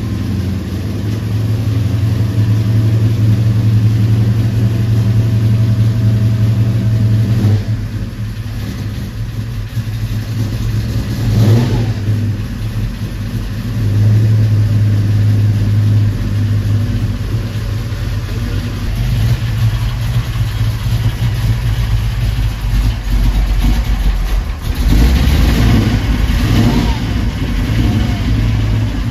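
496 cubic-inch stroker big-block Chevy V8 running at idle, its speed rising and falling a few times with blips of the throttle.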